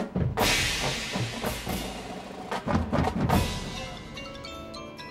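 Drum and bugle corps percussion opening its show with a sudden loud ensemble hit of drums and cymbal crashes, followed by more accented drum and cymbal hits. Near the end, marimbas and other mallet percussion ring out with quick pitched notes.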